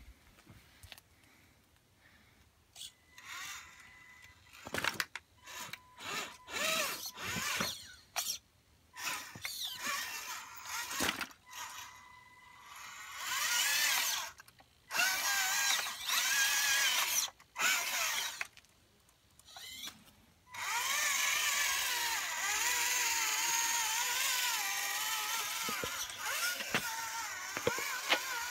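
Electric motor and gears of a scale RC crawler truck whining in short throttle bursts, the pitch rising and falling. For the last third it runs continuously.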